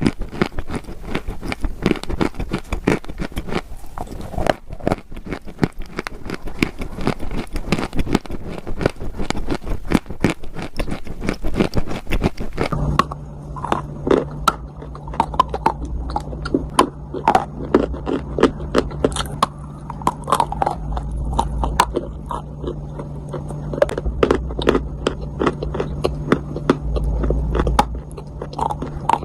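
Dry clay crunching, a dense run of crisp crackles and snaps. About 13 s in the crunches turn duller, over a steady low hum.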